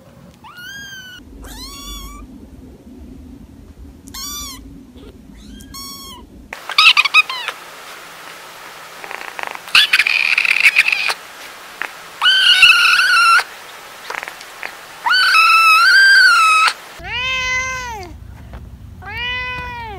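Cats meowing, one after another. First young kittens give short, thin, high mews several times; from about six seconds in an adult cat meows loudly in longer calls; near the end another adult cat meows, lower in pitch.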